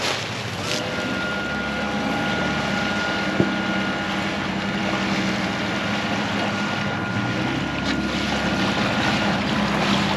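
A boat motor running steadily with a constant hum and a thin whine, while wind buffets the microphone.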